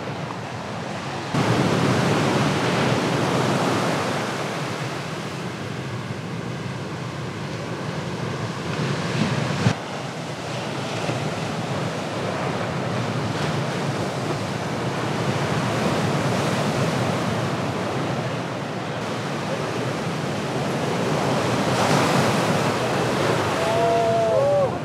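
Ocean waves breaking heavily on a reef, a continuous surf wash with wind on the microphone. The level steps up about a second in, and there is a sharp click near ten seconds.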